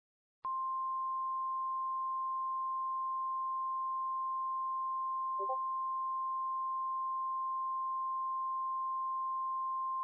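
Emergency Alert System attention tone: a single steady sine tone just above 1 kHz, the 1050 Hz weather-warning alert tone, starting about half a second in and held unbroken.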